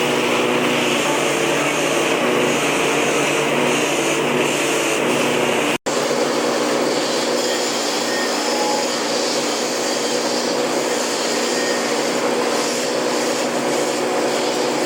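A machine running steadily and loudly, with a constant hum and hiss. It breaks off for an instant about six seconds in, then carries on unchanged.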